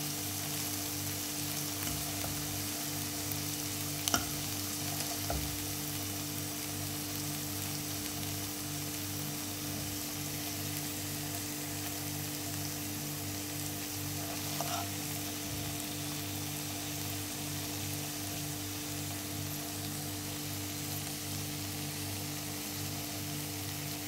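Eggs in tomato sauce sizzling in a frying pan as a fork stirs and breaks them up, with a few sharp clicks of the fork against the pan, the loudest about four seconds in. A steady low hum runs underneath.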